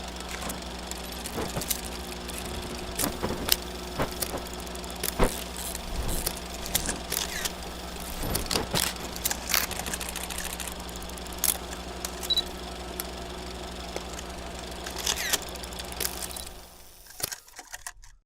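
Vintage film projector sound effect: a steady motor hum under irregular clicks and crackles, fading out in the last couple of seconds.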